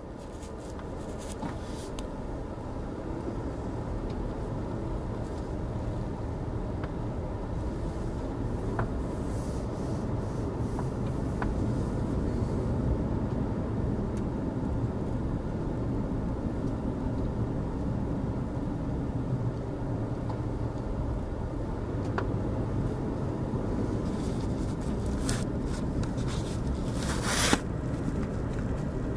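Car road and engine noise heard from inside the cabin through a dash cam while driving: a steady low rumble with a few faint ticks, and a brief louder rattling noise near the end.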